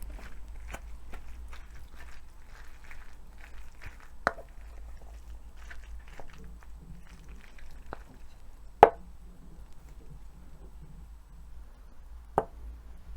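Eating sounds close to the microphone: soft chewing and small clicks, with three sharper clinks of utensils against a bowl, about four, nine and twelve seconds in, the middle one the loudest.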